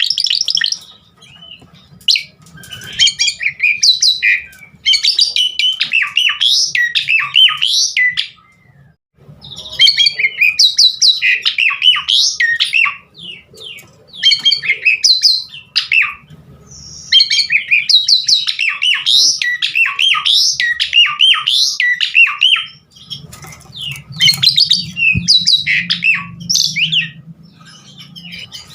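Asian pied starling (jalak suren) in full song: long, busy bouts of varied whistles, chatters and squawky notes packed with mixed-in phrases, broken by short pauses, the longest about nine seconds in.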